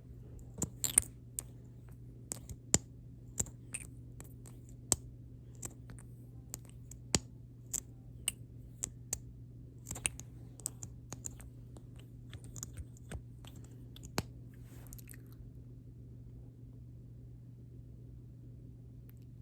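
Close-miked wet lip smacks and sticky clicks as lip gloss is put on, irregular and spaced out, stopping about fifteen seconds in. A steady low electrical hum runs underneath.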